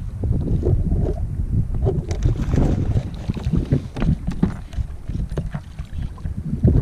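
Wind buffeting the microphone as an uneven low rumble, with water lapping against a kayak's hull and a few small knocks.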